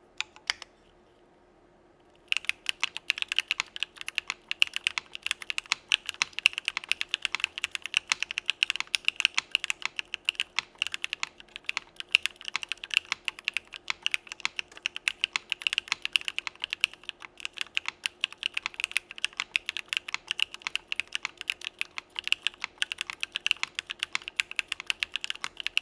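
Fast, continuous typing on a mechanical keyboard fitted with JWK Cola linear switches, whose housings and stems are POM, starting about two seconds in.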